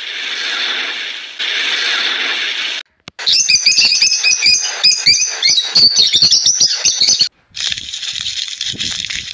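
A green parrot calling in a rapid run of sharp chirps and squawks for about four seconds, starting about three seconds in. Before and after it, a steady hiss fills the rest.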